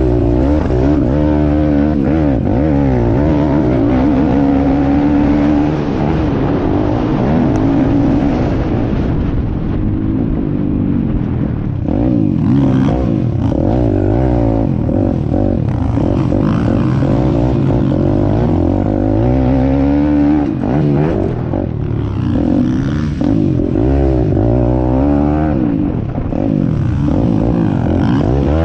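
Piranha P190 pit bike's 190cc single-cylinder four-stroke engine revving hard and easing off again and again, its pitch climbing and dropping as it is ridden around a dirt motocross track, heard close up from the rider's onboard camera.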